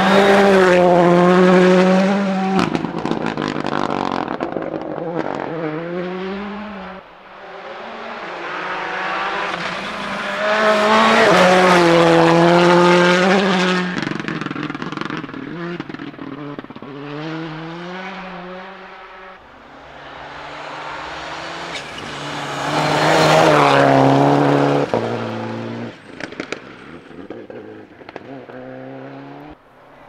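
Rally cars at full throttle on a gravel forest stage, a succession of separate passes. Each engine revs up hard and drops in steps at the gear changes as the car comes by, with a hiss of gravel under the tyres; the three loudest passes come near the start, about a third of the way in, and about three quarters of the way in.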